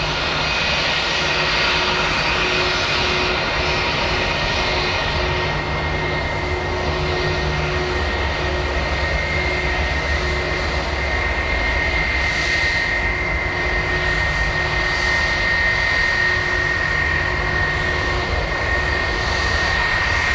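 Airbus A320-232 jet engines (IAE V2500) idling before takeoff: a steady rushing noise with a high whine running through it.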